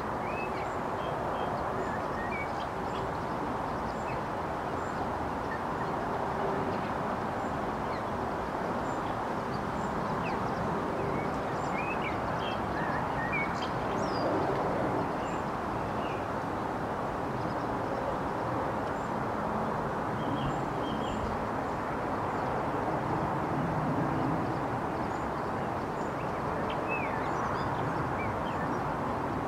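A steady rushing background noise runs throughout, with short, high bird chirps scattered over it every second or two.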